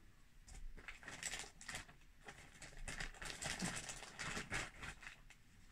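Soft, irregular rustling and crinkling of underwear and its packaging being handled and laid out, a scratchy run of small strokes that stops near the end.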